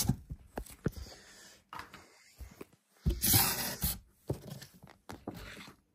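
Cardboard fireworks boxes and packaging being handled in a carton: scattered knocks and taps, with a louder burst of rustling and scraping about three seconds in.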